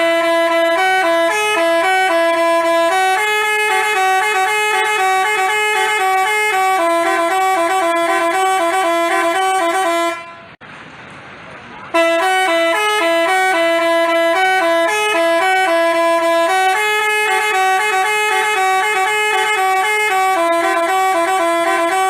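Basuri telolet horn playing a melody of quick stepped notes in a repeating pattern. It cuts off about ten seconds in and starts the tune again about a second and a half later.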